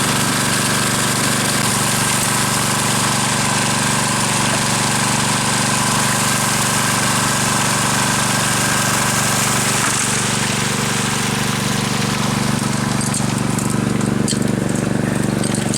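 The gasoline engine and water pump of a 2-inch highbanker dredge running steadily at a constant speed. A high hiss over it eases about ten seconds in, and a few light clicks come near the end.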